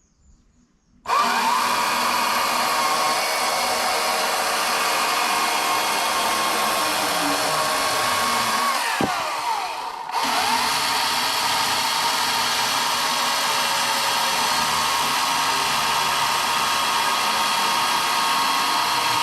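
EGO CS2005 20-inch battery chainsaw running at full speed with a steady, high electric whine, starting about a second in. About nine seconds in it winds down briefly, then is brought back up to speed and keeps running.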